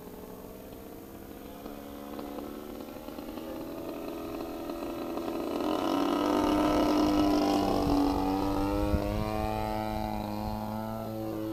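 Engine and propeller of a radio-controlled Edge 540 aerobatic model plane in flight. The engine grows steadily louder as the plane comes in low, is loudest about six to eight seconds in, then fades a little, its pitch sliding down and back up as it turns away.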